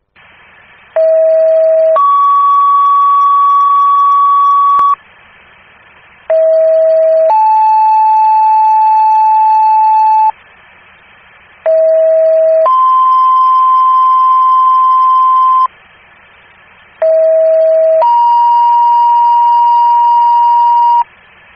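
Fire dispatch two-tone paging tones over a scanner radio, alerting the fire companies to a call. There are four loud sequences, each a short lower tone of about a second followed by a higher tone held about three seconds. The second tone is at a different pitch in each sequence, with faint radio hiss in the short gaps between them.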